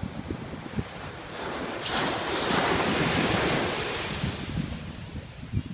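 Ocean surf on a beach: a wave breaks and washes up about two seconds in, swelling to a loud hiss and fading over a couple of seconds. Wind buffets the microphone throughout with a low rumble.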